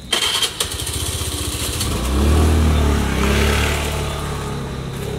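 A motor vehicle engine passing by: it grows louder to a peak about two seconds in, then fades away.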